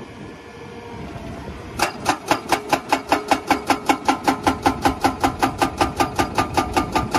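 Hydraulic rock breaker on an excavator arm hammering rock. Rapid, even blows start about two seconds in and run at roughly six to seven a second, each with a metallic ring.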